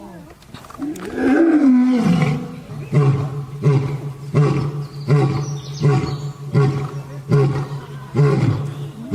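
Lion roaring: a long moaning call about a second in, followed by a series of short, evenly spaced grunts, about one and a half a second, that ends a roaring bout.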